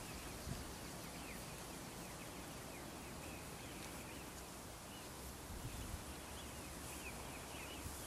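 Faint calls of distant waterbirds: many short, high chirps and whistles scattered over a quiet outdoor hiss.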